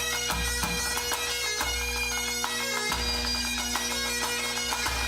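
Scottish pipe band playing: bagpipes carry the melody over their steady drones, with drum strokes beating through.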